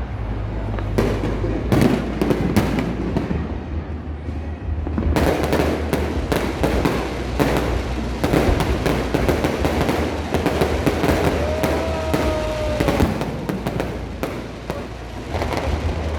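Fireworks going off in a rapid series of bangs and crackles, thickening into a dense crackling barrage about five seconds in.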